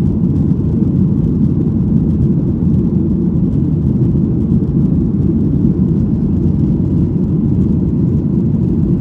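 Airliner cabin noise heard from a window seat: a loud, steady, low rumble of the engines and airflow.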